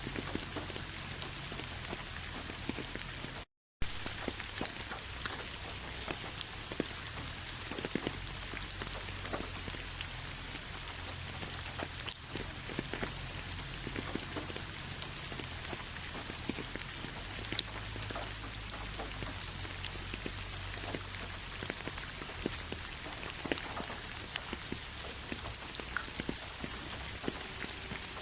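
Steady rain falling, an even hiss with many scattered drops ticking sharply. The sound cuts out completely for a moment about three and a half seconds in, then resumes.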